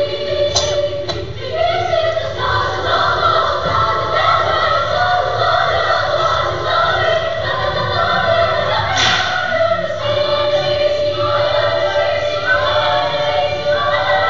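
Children's choir singing in several-part harmony, holding and moving between sustained notes, with a few brief sharp accents.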